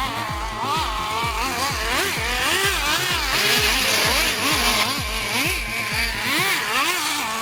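Nitro engine of a Traxxas Slayer RC car (TRX 3.3) revving up and down as the throttle is worked. It is mixed with music whose steady kick-drum beat, about three thumps a second, stops about six seconds in.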